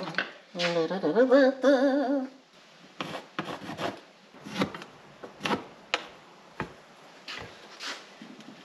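A man hums a short wavering tune for a second or two. After that come a dozen or so light, irregular knocks and clicks as wooden pieces, a pencil and a metal square are handled on a workbench.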